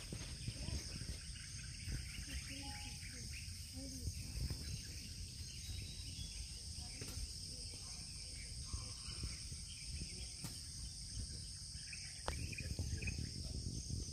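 Steady high-pitched insect chorus over a low rumbling background, with a few faint clicks and rustles scattered through.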